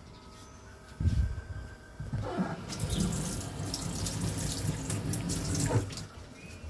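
A kitchen tap running for about three seconds, starting a little over two seconds in, after a low bump about a second in.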